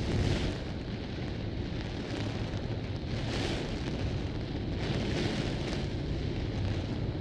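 Heavy rain and fierce storm wind, with wind buffeting the microphone in a steady low rumble. The gusts swell three times: at the start, about three seconds in, and about five seconds in.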